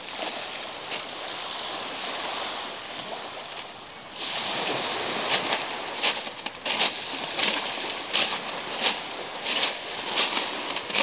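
Small sea waves washing on a pebble beach, with regular footsteps crunching over the loose pebbles from about four seconds in, roughly one step every 0.7 seconds.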